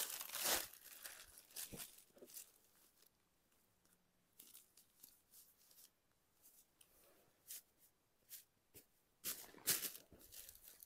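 Irregular crinkling and rustling as sarees are handled and shown, loudest at the start and again near the end, with quieter stretches between.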